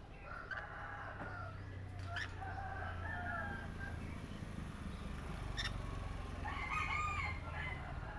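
Pet parrots calling: a few short pitched squawks and chirps come in three bouts, with a few sharp clicks between them, over a steady low hum.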